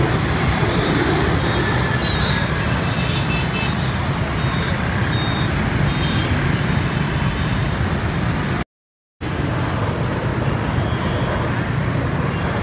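Busy road traffic, mostly motorbikes and cars, making a steady rumble, broken by a brief dropout to silence about two-thirds of the way through where the recording cuts.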